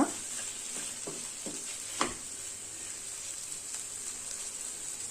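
Okra masala sizzling steadily as it fries in oil in a pan, stirred with a spatula, with a few soft scrapes and one sharper knock of the spatula on the pan about two seconds in.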